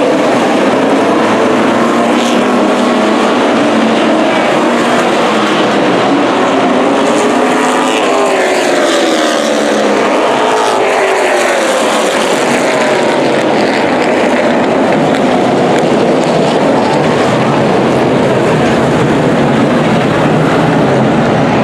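A pack of street stock race cars running hard around a short oval, several engines at once. Their pitch rises and falls as the cars pass, most clearly about midway through.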